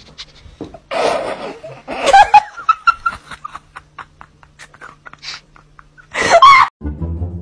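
A person laughing off-camera, in breathy gasps and a run of short rapid bursts, with music coming in near the end.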